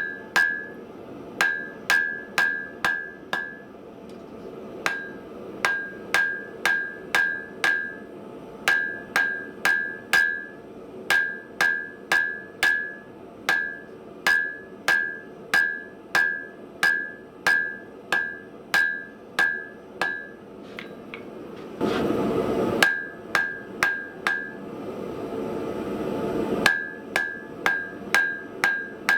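Forging hammer striking hot steel on an anvil, about two blows a second, many of them followed by a bright ringing tone from the anvil. About three-quarters of the way in, the hammering pauses for a few seconds of rushing noise, then resumes.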